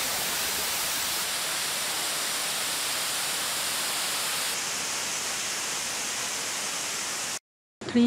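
Waterfall pouring down a rock face into a pond: a steady, even rush of water that cuts off abruptly near the end.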